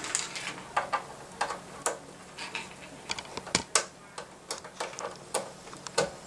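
Irregular light clicks and taps of plastic cable plugs and equipment being handled, a few louder knocks among them, as a power adapter cable is plugged into a check reader.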